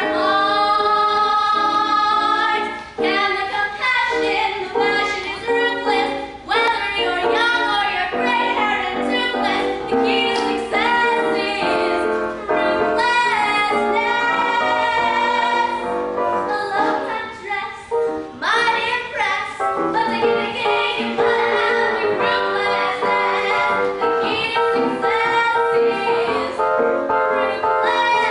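A female voice singing a show tune over instrumental accompaniment, holding a long note at the start and swooping up to a high note about two-thirds of the way through.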